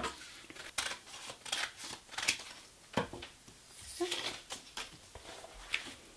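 Scissors snipping through paper, with paper and card rustling as the collage is trimmed clean: a string of short, crisp, irregular snips and shuffles.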